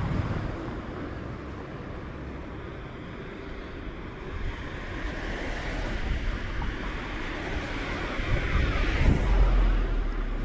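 Street ambience of tyre hiss from a passing vehicle, swelling to its loudest about nine seconds in, with wind buffeting the microphone.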